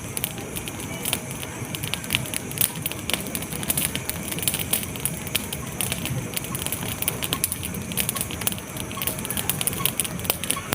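Dense, irregular crackling and sharp clicks over a steady low rumble.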